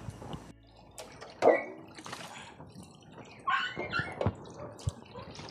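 Water running from a garden hose into a metal basin, with ducks calling a few times; the loudest call comes about one and a half seconds in.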